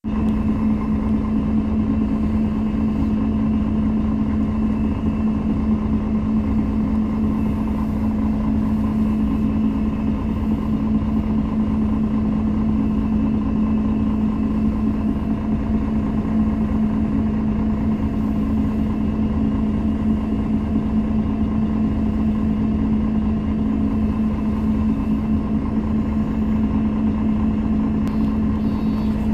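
The diesel engine of a 2003 MAN NG 313 (A23) articulated city bus idling with a steady, unchanging hum, heard from inside the bus.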